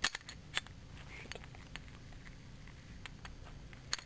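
A few sharp clicks and light taps of small metal engine parts and tools being handled and set down on a workbench, the loudest at the very start, about half a second in, and near the end.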